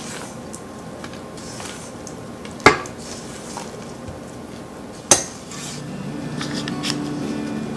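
Silicone spatula scraping and folding thick cupcake batter in a metal mixing bowl, with two sharp knocks against the bowl, about two and a half and five seconds in. Music starts near the end.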